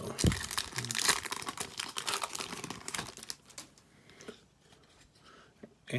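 A hockey card pack wrapper being torn open and crinkled, with dense crackling for about three and a half seconds. It then dies down to a few faint ticks as the cards are handled.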